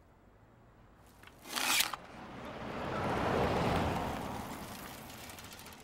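A short crunching cut of a hand-lever herb cutter's blade about a second and a half in, then a car passing along the street, swelling and fading away.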